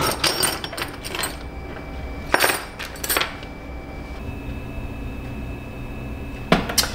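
Light clicks and clinks of small hard objects handled on a cluttered workbench, a few separate knocks about two and a half, three and near seven seconds in. A faint steady hum begins about four seconds in.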